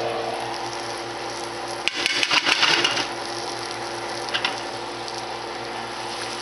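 Flour-dredged herring fillets frying in oil in a nonstick pan, a steady sizzle. About two seconds in comes a burst of rattling and knocking lasting about a second, with a shorter one a little past the middle.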